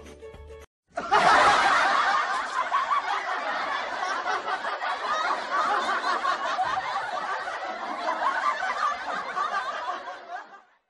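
Many people laughing at once, a dense overlapping mass of laughter that starts abruptly about a second in and fades out near the end.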